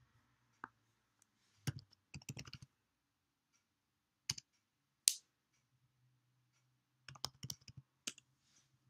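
Computer keyboard typing in short bursts of keystrokes: a quick run about two seconds in, two single sharp clicks around four and five seconds, and another run of keystrokes near the end.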